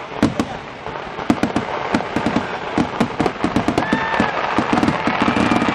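Aerial fireworks display: a rapid, dense run of bangs and crackling from bursting shells, getting busier and louder toward the end. Thin whistling tones come in about four seconds in.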